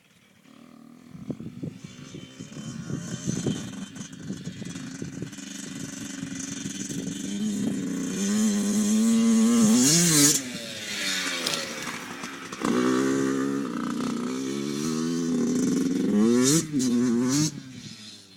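Dirt bike engine revving as the bike is ridden, climbing in pitch and loudness to a peak about ten seconds in, then dropping off. It comes back louder with several rises and falls in revs before fading near the end.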